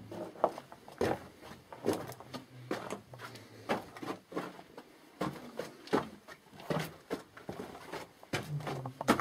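Footsteps on the floor of a mine tunnel, a crunching step about every second as someone walks along.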